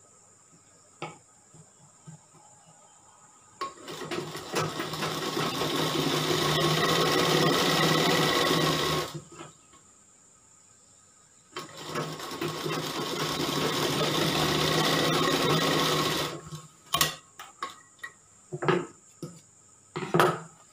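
Sewing machine stitching a seam in two runs of about five seconds each, picking up speed at the start of each run, with a short pause between them. A few short clicks and knocks follow near the end as the fabric and machine are handled.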